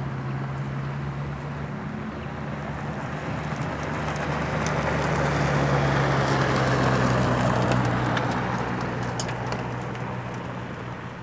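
Cessna 150's four-cylinder Continental O-200 engine and propeller at full takeoff power, a steady drone that grows louder to a peak about six or seven seconds in, then fades as the plane climbs away.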